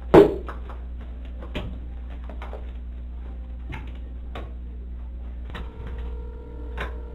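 Surveillance-camera audio with a steady low hum: a sharp, loud knock just after the start, then scattered small clicks and knocks from handling and movement, and a steady electronic tone with several pitches coming in near the end.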